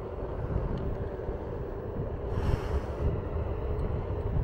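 Wind buffeting the microphone while riding an electric Onewheel GT: a steady low rumble with a faint steady hum, and a brief hiss about halfway through.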